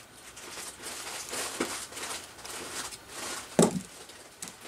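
A cat rummaging in cardboard boxes: crinkling, scraping and rustling of cardboard, with a couple of sharper scrapes.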